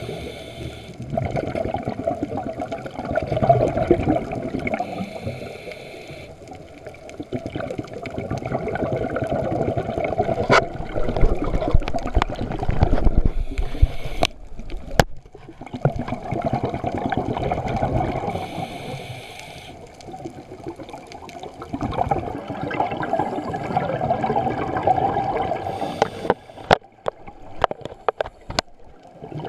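Muffled underwater rush picked up through a GoPro's waterproof housing, swelling and fading every few seconds. Sharp clicks and knocks from hands handling the housing come about halfway through and again near the end.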